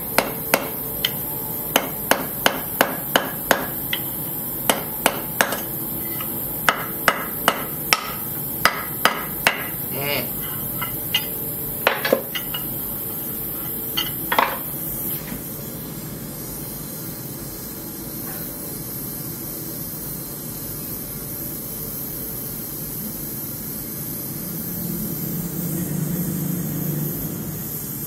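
Hand hammer striking a small hot steel fitting on a steel anvil: a run of sharp ringing blows at about two a second, thinning out and stopping about halfway. Then a steady hiss of a gas torch flame, louder for a few seconds near the end.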